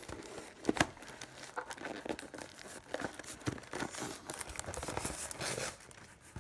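Packaging being torn and crinkled open by hand, an irregular run of crackles and short rips.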